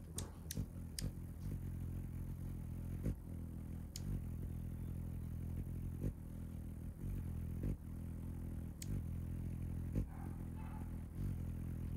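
Hummingbird's wings humming as it hovers at a nectar feeder: a steady, low, engine-like drone, with sharp clicks every second or two.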